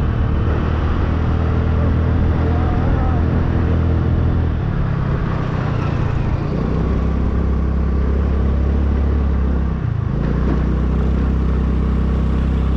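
Honda scooter's single-cylinder engine running on the move, heard from the rider's seat with steady wind and road noise. The engine note shifts about five seconds in and drops briefly near ten seconds before picking up again.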